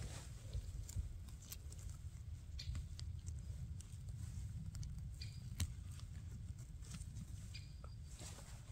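Rustling and crackling in forest-floor leaf litter and twigs, a scatter of light snaps and clicks over a low rumble, with a few brief high chirps.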